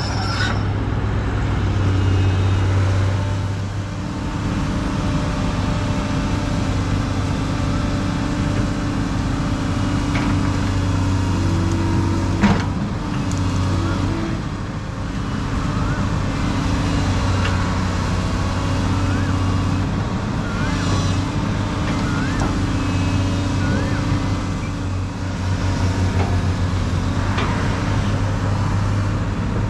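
Heavy diesel engines of an excavator and a road roller running steadily under load, with one sharp clank about twelve seconds in and a string of short rising high-pitched squeaks in the second half.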